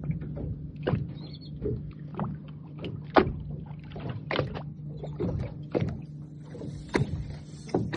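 A small boat on the water: irregular knocks and splashes against the hull, over a steady low hum.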